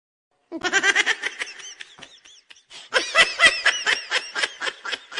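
High-pitched laughter in rapid bursts, starting about half a second in after a moment of dead silence, easing off and then breaking out again louder near the middle.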